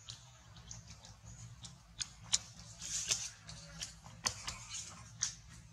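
Dry leaf litter crackling under a walking macaque's feet: irregular sharp snaps and crunches, thickest from about two seconds in.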